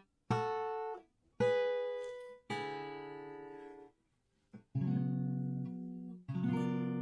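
Guitar chords struck one at a time, five in all. Each rings for about a second and is then cut off short, with brief gaps of silence between some of them.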